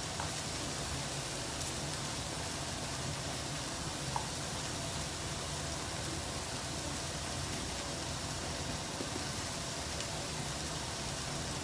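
Chicken pieces sizzling steadily as they fry in a pan, with one light click about four seconds in.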